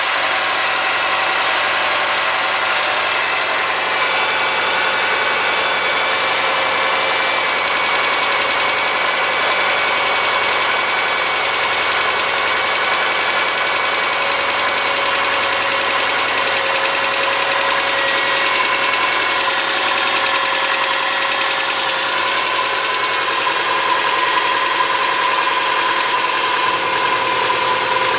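2003 Subaru Forester's flat-four engine idling steadily with a ticking from the driver's side of the engine. The tick comes from excessive clearance on the front driver-side exhaust valve: 0.029 in instead of about 0.010 in.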